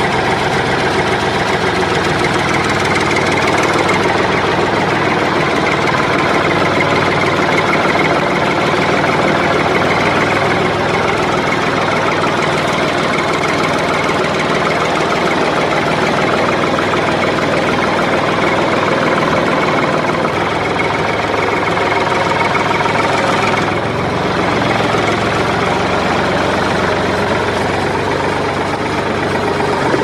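Toy remote-control tractor's built-in engine sound effect playing from its small speaker: a steady, loud recorded engine loop that dips slightly about 24 seconds in.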